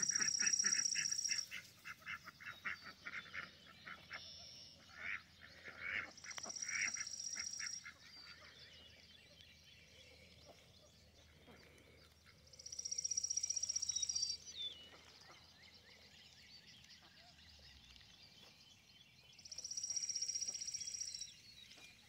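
Ducks quacking in bursts through the first several seconds. Over them, a songbird's high trill of about two seconds repeats four times, roughly every six to seven seconds.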